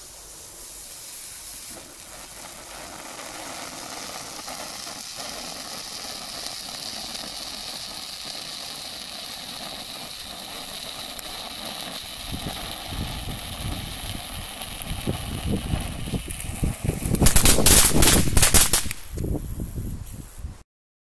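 Panda Lucky Star firework fountain burning with a steady hiss, turning to crackling about twelve seconds in that builds to a dense run of loud crackles near the end.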